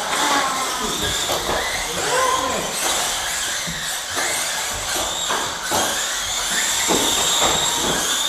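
Several small Dromida electric RC race cars running laps together, their motors giving a high, steady whine, with people's voices talking over it.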